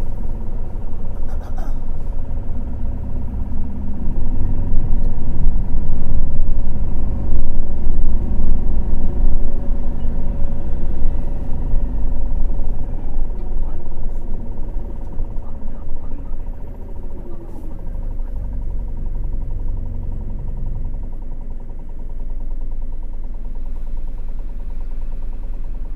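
Cabin noise of a city bus under way: the engine and drivetrain give a low rumble with a steady whine above it. It is louder and fluctuating in the first half, eases off about sixteen seconds in, and settles to a quieter, even running sound from about twenty-two seconds, as the bus slows.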